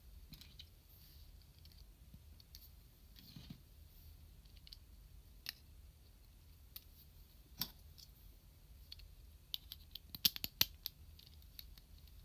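Small plastic model-kit parts of an SMP Gao King eagle clicking as they are handled and pressed together: scattered single clicks, then a quick run of sharper, louder clicks about ten seconds in.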